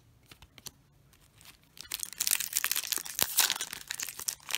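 Faint card-handling ticks, then from about two seconds in the foil wrapper of a Magic: The Gathering booster pack being torn open and crinkled in the hands.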